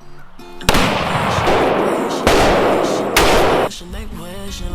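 Three loud gunshots, about a second or so apart, each followed by a long echoing tail.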